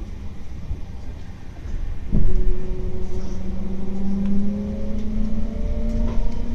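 Electric train running slowly through a rail tunnel: a steady low rumble, joined about two seconds in by a humming tone that rises slightly in pitch and then holds.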